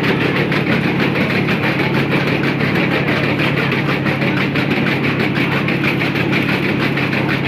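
Children's amusement-park track ride running, heard from on board: a steady low mechanical hum with a continuous rattle of the cars on the rails.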